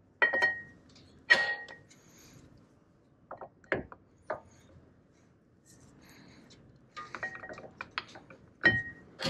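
Brake pads being slid and pushed into a Dicase big brake caliper: scattered sharp metal clicks and clinks as the steel pad backing plates knock against the caliper, some ringing briefly, with a quick cluster of clicks near the end.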